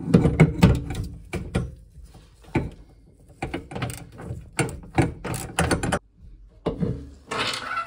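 Socket ratchet clicking in irregular bursts as the long-thread back nut holding a kitchen tap is undone, with a short scraping sound near the end.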